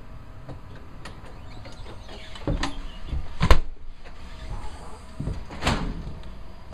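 Footsteps on a wooden deck: a few short thumps over a low rumble, the loudest about three and a half seconds in.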